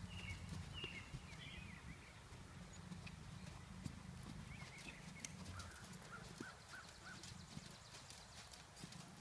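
Friesian horse trotting on sand footing: faint, soft hoofbeats in a steady rhythm.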